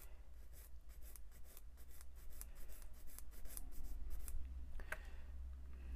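Small plastic model kit parts handled and fitted over a cutting mat: a run of light clicks and scratches that thins out after about four seconds, with a couple of sharper clicks near the end. A low steady hum runs underneath.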